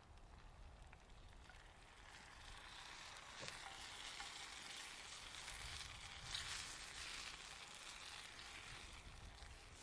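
Food sizzling as it fries. The hiss builds about two seconds in and stays strong, with one small click partway through.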